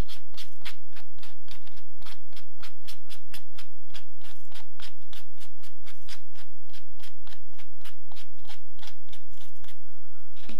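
Hand-sanding the edge of a small leather washer with yellow sandpaper: quick, even scratchy rubbing strokes, about four a second.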